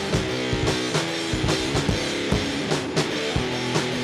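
Instrumental passage of a rock song: guitars over a drum kit keeping a steady beat, with no vocals.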